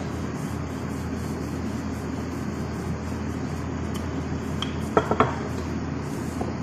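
Wooden rolling pin rolling donut dough flat on a kitchen counter, heard only faintly under a steady background hiss and hum. Two sharp knocks come close together about five seconds in.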